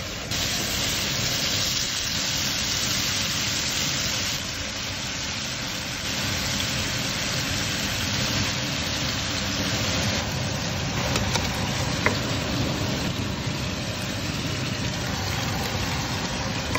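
Marinated chicken pieces sizzling in hot oil in a frying pan: a steady hiss that jumps in level at a few abrupt cuts, with a few sharp pops about two-thirds of the way through.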